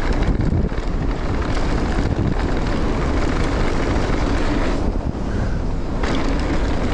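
Mountain bike ridden down a dirt jump line, heard as heavy wind rushing over an action-camera microphone with a steady low rumble and rattle from the trail.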